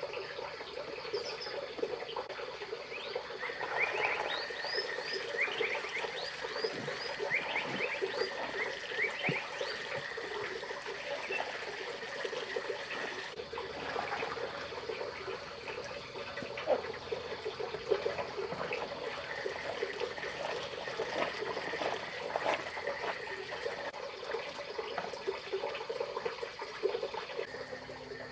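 Water sloshing, dripping and splashing as clothes are scrubbed and wrung out by hand in a plastic basin, with water spilling onto wooden boards.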